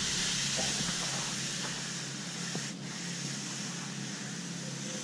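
Steel finishing trowel sliding along the surface of a fresh concrete curb, a steady scraping hiss with a brief break about three seconds in.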